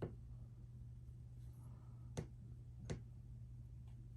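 A few sharp small clicks, one about two seconds in, another just under three seconds in and a faint one near the end, over a steady low electrical hum.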